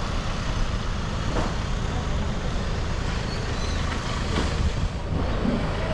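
City street noise: a steady low rumble of road traffic.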